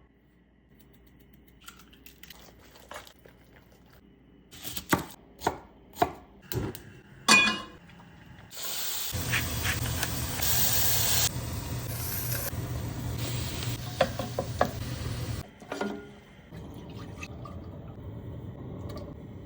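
Kitchen preparation sounds: a run of about six sharp knocks, then a loud steady rushing noise lasting about seven seconds that stops suddenly, followed by a softer steady noise.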